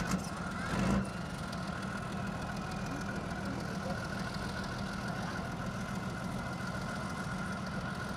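Heavy military diesel engine idling steadily, a low hum under a faint constant whine, with a couple of brief knocks in the first second.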